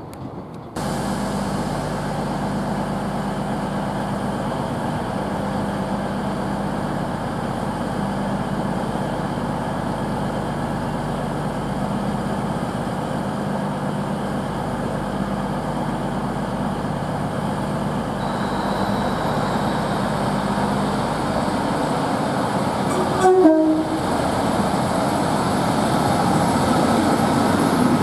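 CrossCountry Voyager diesel multiple unit idling at the platform, its underfloor diesel engines giving a steady low hum. About 23 s in there is a brief loud sound with a quick change in pitch, followed by louder, rougher train noise.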